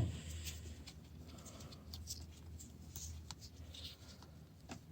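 Small sharp clicks and faint scratching as wires and their terminals are handled, with the loudest click right at the start.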